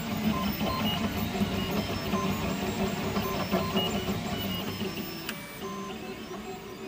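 Markforged 3D printer running a print: its stepper motors drive the print head with a hum and whine that keeps jumping between short tones of different pitch as the head moves. A single sharp click comes about five seconds in.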